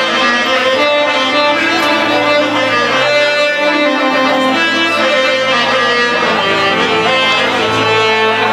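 Live band music playing an instrumental passage without singing: held melodic notes over a bass line that steps to a new note every second or two.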